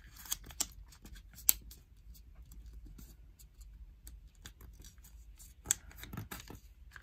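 Sheets of origami colour paper rustling and crackling as they are folded and pressed flat by hand. There are scattered crisp clicks throughout, the sharpest about a second and a half in and again near the end.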